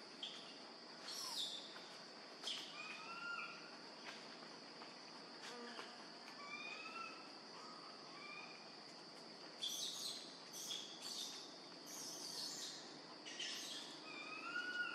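A steady high-pitched insect drone, with short rising chirping calls over it and a few sharp high squeaks. The squeaks cluster and are loudest in the last five seconds.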